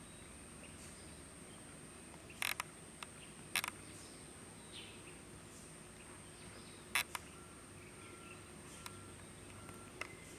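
Quiet outdoor ambience with a steady high-pitched insect drone, broken by four sharp clicks, the loudest sounds here. A short note repeats several times in the second half.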